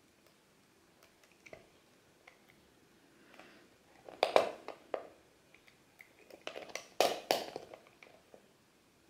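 Snap-off utility knife blade being forced and twisted through a hard plastic screw cap, giving crunching, cracking sounds in two clusters, about four seconds in and again about seven seconds in.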